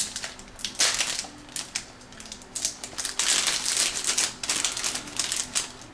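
Cardboard and plastic retail packaging of an iPod Touch case rustling, clicking and scraping as hands try to slide the case back into its box. The crackles and clicks come irregularly and grow busiest in the second half.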